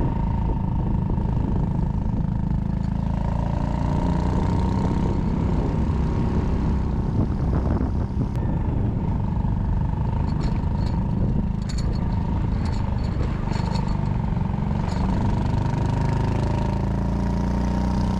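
Honda Cross Cub 110's small single-cylinder four-stroke engine running steadily under way, with a constant low rumble and a steady whine, and a run of light clicks in the middle.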